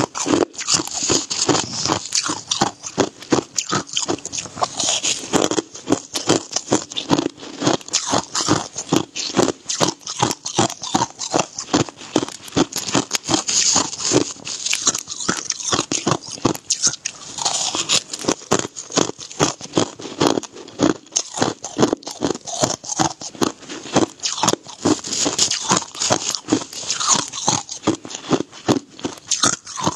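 Crushed ice being chewed, a quick, unbroken run of sharp, brittle crunches, several a second.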